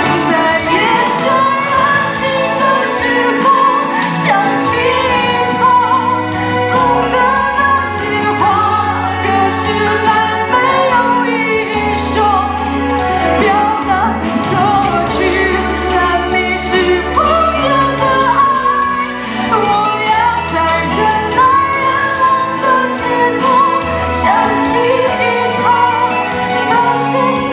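A woman singing a pop song into a handheld microphone over a backing track, with a steady bass line under her voice.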